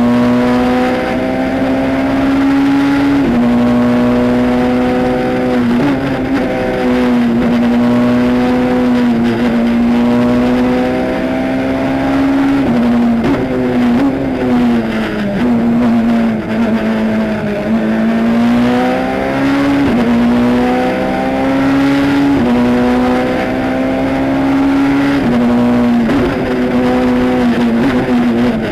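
Peugeot 207 S2000 rally car's naturally aspirated 2.0-litre four-cylinder engine, heard from inside the cabin, running hard at high revs. The pitch climbs and drops sharply at each quick gear change every few seconds. Midway the pitch sags and then climbs back up.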